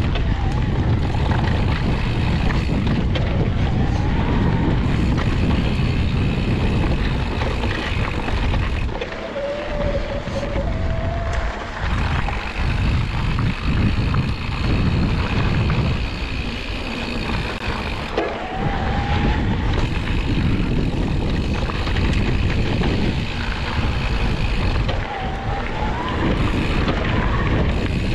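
Mountain bike being ridden along a dirt trail: a steady rumble of tyres over the ground and wind on the microphone, with a few short rising squeaks.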